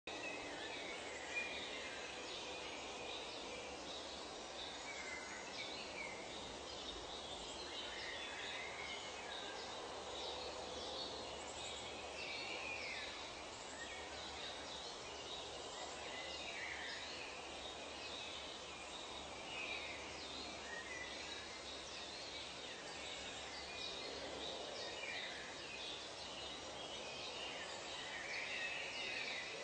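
Nature soundscape of many birds calling, with short chirps and calls overlapping all the way through over a steady, even hiss.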